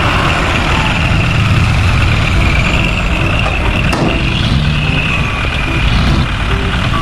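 Truck engine idling steadily, a low rumble with a faint high whine above it.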